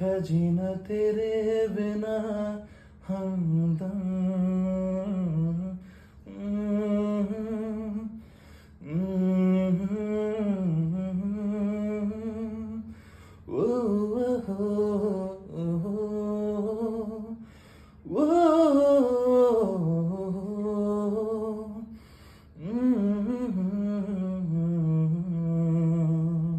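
A man humming a slow melody without accompaniment, in sustained phrases of two to four seconds with short breaks between them.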